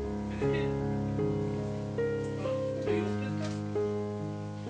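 Background piano music playing slow, held notes that change every half-second to a second.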